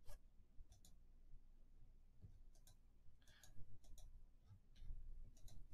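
Faint, scattered computer clicks, several in quick pairs, as the text document is moved through.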